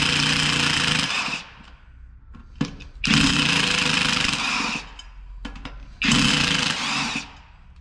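Cordless impact driver with a star (Torx) bit running in three bursts, each a second or two long, backing out the screws that hold a brake rotor to its wheel hub. A few faint clicks come between the bursts.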